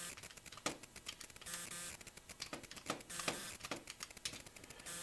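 A series of about a dozen sharp, irregularly spaced clicks from the buttons of a calculator being pressed to key in a division.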